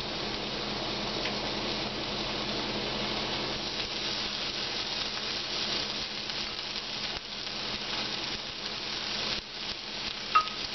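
Chicken strips sizzling steadily on the hot plate of an electric contact grill while barbecue sauce is brushed on. A short, sharp clink near the end.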